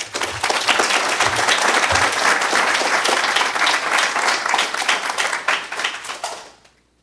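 Audience applauding, a dense clapping that dies away about six and a half seconds in.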